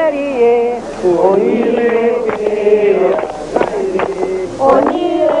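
Chanted singing with long held notes that slide in pitch. Sharp percussion strikes join in from about two seconds in, at an uneven pace.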